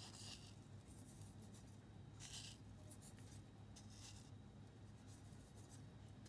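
Near silence with a low steady hum and three faint, brief rustles about two seconds apart: fingers pinching salt and pepper from a small wooden dish and sprinkling it.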